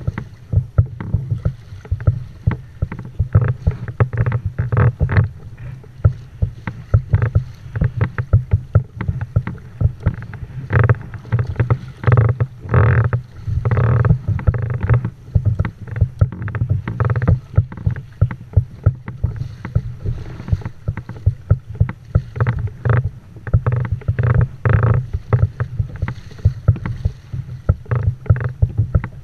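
Kayak hull moving through choppy sea, water slapping and splashing against it in quick irregular hits over a steady low rumble.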